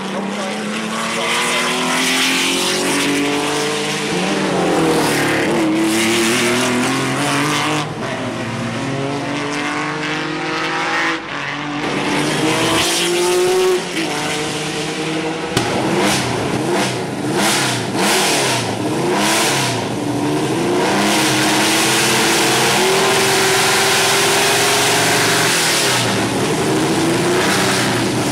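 Ford Capri RS 3100 Cosworth DRM race car's V6 engine under hard acceleration. Its note climbs in pitch through each gear and drops back at every upshift. Later comes a run of quick throttle lifts and blips, then a long steady high-revving stretch.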